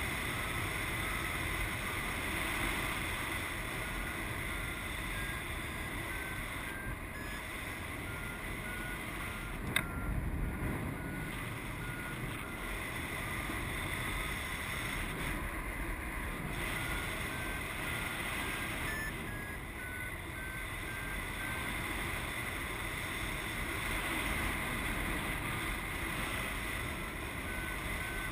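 Steady wind rush on the microphone in paraglider flight, with a flight variometer's short beeps stepping up and down in pitch: the climb tone, sounding while the glider rises in ridge lift. A single sharp click about ten seconds in.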